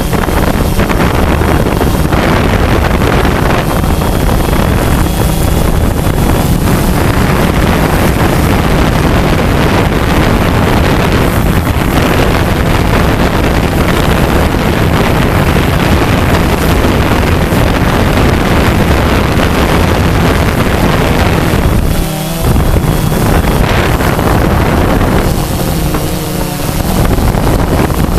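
Loud, steady rush of a quadcopter drone's propellers mixed with wind buffeting its onboard microphone, with a faint motor whine; the noise dips briefly twice near the end.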